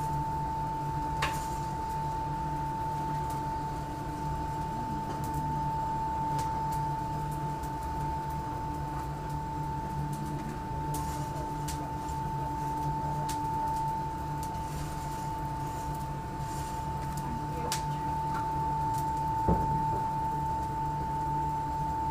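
Electric fan motor running steadily: a constant high whine over a low hum. A few sharp metal clicks sound over it, with one louder knock near the end.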